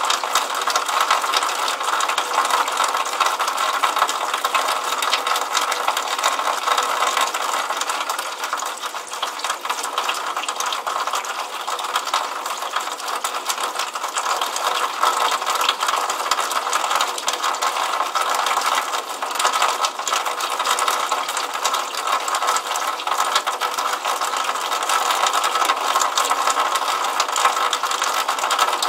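Water trickling from a downspout and splashing into a puddle: a steady, fast run of tiny splashes with no low rumble.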